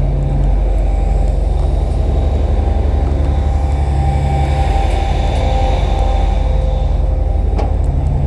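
Fishing party boat's engines running under way: a steady low drone, with rushing water and wind over it.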